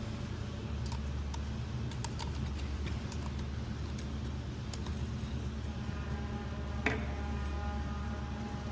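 Light clicks and clinks of metal dual-clutch transmission parts being handled, over a steady low hum, with one sharper click about seven seconds in.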